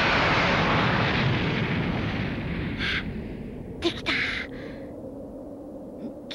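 Animated explosion sound effect from an energy blast, dying away over about three seconds. After it come a few short vocal sounds, the clearest a brief exclamation about four seconds in.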